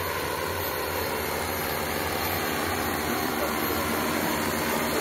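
Large multirotor agricultural spraying drone flying low, its propellers giving a steady whirring drone with a low hum. The sound grows slightly louder toward the end.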